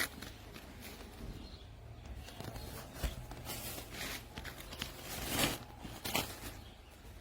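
Irregular rustling with a few light knocks and clicks, loudest in two short spells in the middle and later part.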